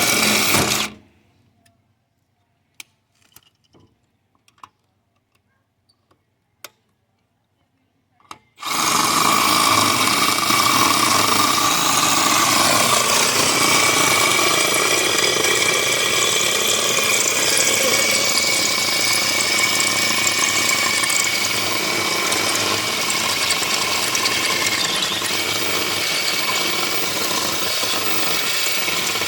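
A brief loud burst, a few faint clicks, then a power drill starts about eight seconds in and runs steadily without stopping, boring into a broken wheel stud to free a seized lug nut.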